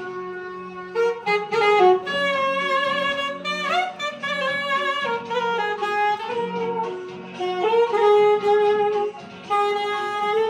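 Saxophone playing a slow melody of long held notes, with a quick upward slide about four seconds in and a short break for breath near nine seconds.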